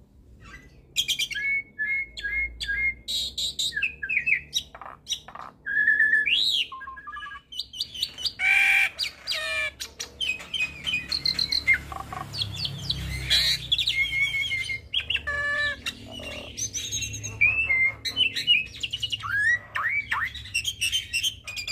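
Hybrid starling (Nias hill myna × Asian pied starling cross) singing a varied, almost unbroken song full of learned phrases. Clear whistles, rising and falling glides and quick repeated chattering notes are mixed with harsh squawks.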